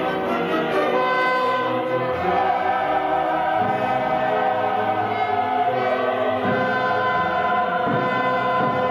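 Sacred choral music: a choir singing slow, held chords that change every second or two.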